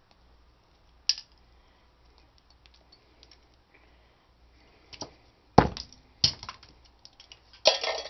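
Small hard clicks and knocks of transformer pieces being handled on a concrete block, the sharpest knock about five and a half seconds in. Near the end comes a rattling clatter as loose copper winding wire is dropped into a tin can.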